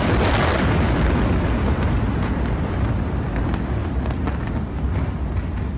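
The rumble of a massive chemical warehouse explosion: the blast arrives just before, then a loud low roar fades slowly, with a few scattered sharp cracks.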